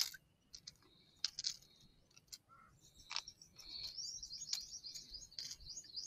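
A bird chirping faintly in a quick run of high, wavy notes that starts a little past halfway, over a few light clicks and knocks.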